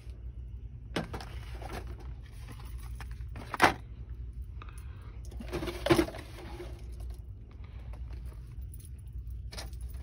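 Plastic toys and packaging handled off a store shelf: scattered rattles and clacks, with two sharper, louder ones about three and a half and six seconds in, over a steady low hum.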